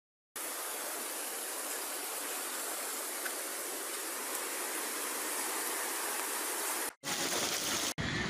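Steady rush of fast-flowing muddy floodwater from a river swollen by tropical storm rain, broken off abruptly twice near the end as the shots change.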